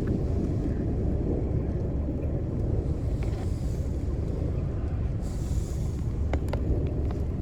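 A steady low rumble, with a few faint clicks about six seconds in.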